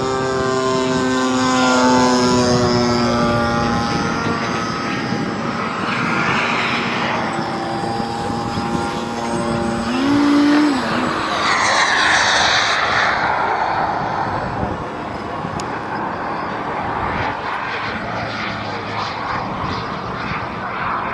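Motor and propeller whine of a radio-controlled Flex Innovations Cessna 180 floatplane on a low pass. The whine drops in pitch over the first few seconds as the plane goes by. The plane then runs on as it skims the water on its floats.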